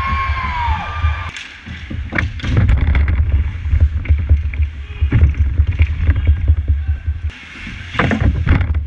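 Ice hockey play picked up by a camera worn by a skating player: a steady low rumble of wind on the microphone as he skates, with skate blades scraping the ice and sticks clacking. A louder flurry of scrapes and knocks comes near the end as players fight for the puck right beside him.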